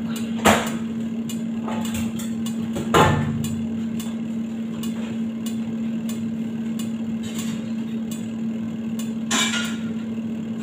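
Steady kitchen hum with three sharp knocks: one about half a second in, a louder one about three seconds in, and a weaker one near the end.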